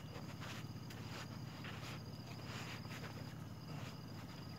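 Crickets trilling, a thin steady high-pitched tone, with faint soft scuffs and rustles.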